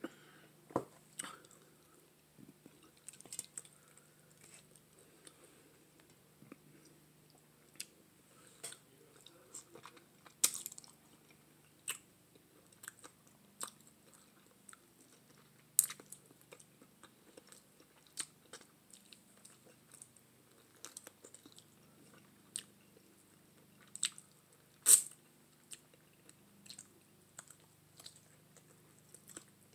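Close-up eating sounds: chewing, biting and wet mouth smacks as meat is eaten off curried neck bones by hand. They come as scattered short clicks, with a few sharper smacks standing out.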